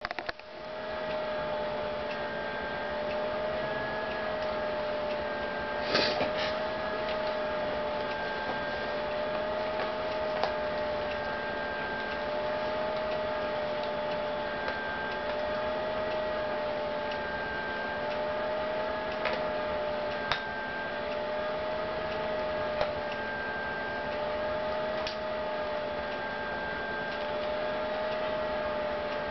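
Steady machine-like hum that wavers slowly in pitch about every two and a half seconds, with a fainter higher tone coming and going on the same cycle. A few sharp clicks are scattered through it, the loudest about six seconds in.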